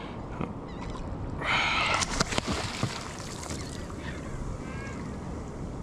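Water sloshing against a fishing kayak, with a short splash about one and a half seconds in followed by a few sharp knocks on the hull.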